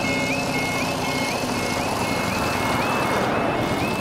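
Automatic level crossing alarm sounding a rising electronic yelp that repeats about twice a second, warning road traffic that a train is coming and the barriers are about to lower. Under it a car and then a motorcycle drive past close by.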